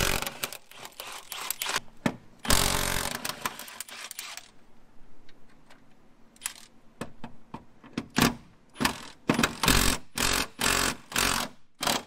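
Cordless impact wrench hammering on a bolt at the rear brake through a long extension. There are two runs of about two seconds each, then a string of short trigger bursts.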